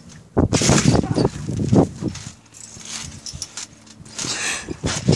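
Bouncing on a trampoline while holding the recording phone: irregular thumps of landings with rustling from the phone being handled, heaviest in the first two seconds and again near the end.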